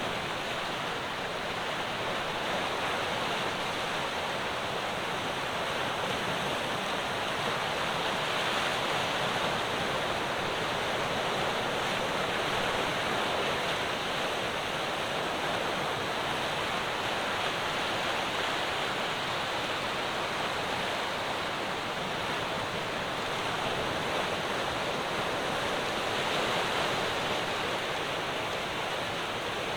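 Ocean waves crashing on the shore: a continuous wash of surf that swells gently a couple of times as bigger waves break.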